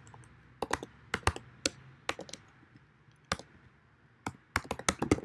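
Typing on a computer keyboard: separate key clicks at an irregular pace, in short runs with pauses between.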